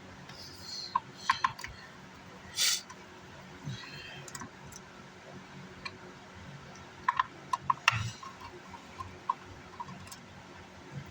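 Scattered small clicks and taps of a screwdriver and loose screws being worked while a car amplifier's cooling fans are unscrewed, with a quick run of ticks about seven to nine seconds in. There is a brief hiss a little over two seconds in.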